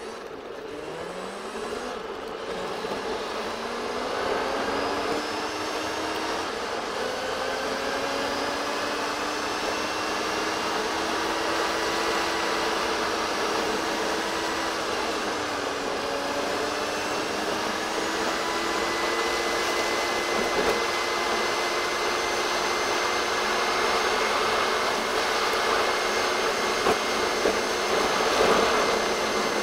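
Car's engine and gearbox sound sped up four times, a high buzzing whine that rises in pitch several times in the first few seconds as the car works up through the gears, then holds fairly steady. The buzz comes from a gearbox in poor condition.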